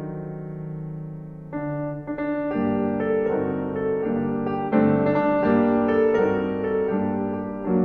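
Background piano music: a held chord, then a run of struck chords and notes from about a second and a half in.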